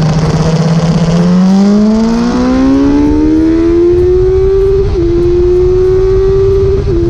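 Sport motorcycle engine heard from the rider's seat, pulling hard under acceleration: its note climbs steadily for about three seconds, then holds level at speed with two brief dips, over a rush of wind.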